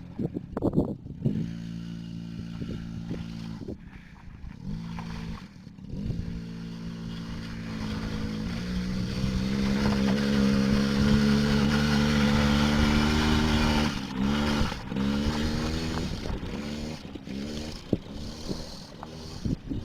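Small ATV engine running at a steady pitch and getting louder as it comes closer. About fourteen seconds in, the engine note drops back and rises and falls with a few quick throttle blips.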